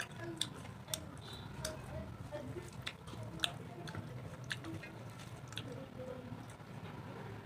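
A person chewing a mouthful of rice with spinach-and-prawn chochchori: wet squishing mouth sounds with irregular small clicks and smacks.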